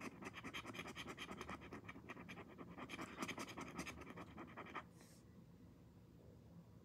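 Scratch-off lottery ticket being scratched, a quick run of rapid scraping strokes across the coated play area that stops about five seconds in.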